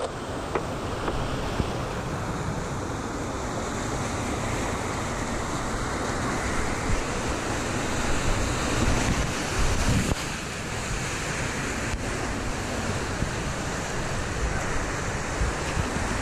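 Whitewater rapids rushing and splashing around a kayak as it runs a steep boulder rapid. Uneven low buffeting of water and air on the microphone runs under the steady rush.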